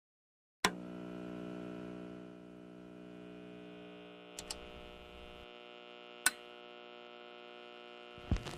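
A single sustained chord from the background music, struck suddenly after a brief silence, then held and slowly fading. A few faint clicks sound over it.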